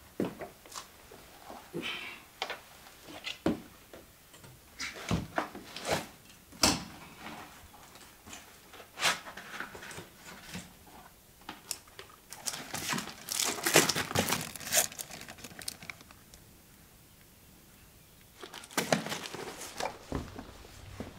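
Packaging being handled and crinkled: a run of sharp crackles, rustles and small knocks, with the busiest stretch of rustling about two-thirds of the way in and a short lull just before the end.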